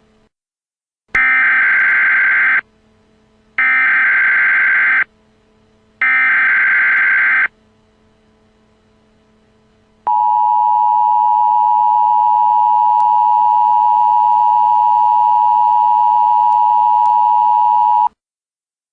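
Emergency Alert System tones: three data bursts of the SAME header, each about a second and a half long with short gaps between them. A couple of seconds later the steady two-tone EAS attention signal (853 and 960 Hz together) comes in and is held for about eight seconds, then cuts off.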